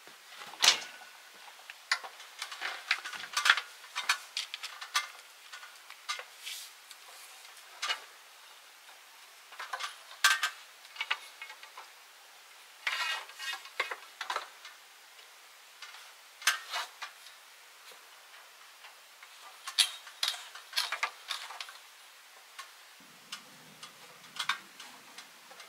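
Irregular light clicks, clanks and rattles as an aluminium stepladder and a long pole are handled and the ladder is climbed, with tools on a tool belt clinking; the clatter comes in clusters with quieter gaps between.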